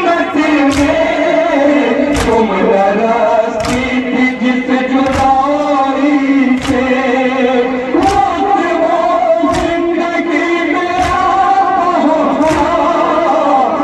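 Male voices chanting a noha, a slow Shia lament, with the mourners beating their chests (matam) in unison about every second and a half.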